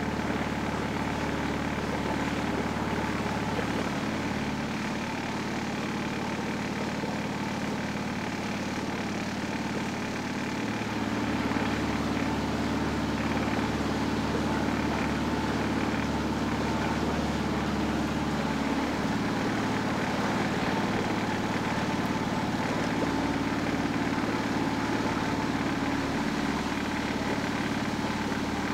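Small petrol outboard motor running steadily at low cruising speed, its note shifting slightly a few times.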